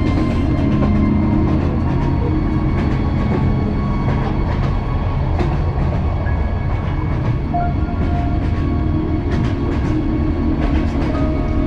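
Sleeper train running along the track, heard from inside the carriage: a steady heavy rumble with faint whining tones and a few sharp knocks and rattles.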